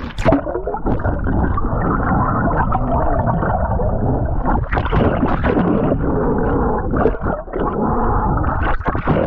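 Muffled underwater rushing and gurgling of seawater heard through a GoPro's waterproof housing held below the surface on a pole. The sound turns dull suddenly just after the start, as the camera goes under.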